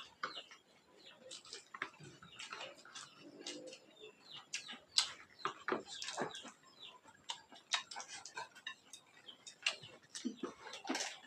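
Faint, irregular clicks and smacks of people eating by hand at a shared table: lips smacking while chewing, and fingers and food tapping on plates.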